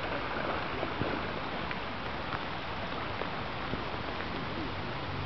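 Steady rush of river current flowing over a shallow riffle, with a few faint ticks scattered through it.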